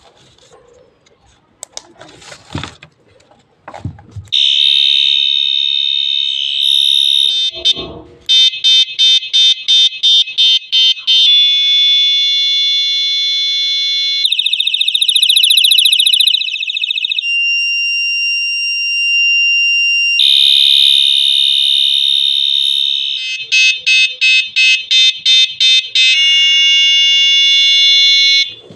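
Electronic bicycle horn of a combined light-and-horn unit cycling through its siren sounds: a warbling siren, rapid beeping at about four beeps a second, a steady tone and a two-tone sound, each lasting about three seconds before switching. A few clicks and knocks of handling come before it starts, about four seconds in.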